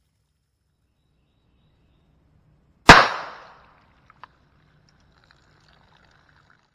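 A single gunshot from a North American Arms .22 LR mini revolver with a 1 1/8 inch barrel, about three seconds in: one sharp crack that dies away over about half a second. A small click follows about a second later.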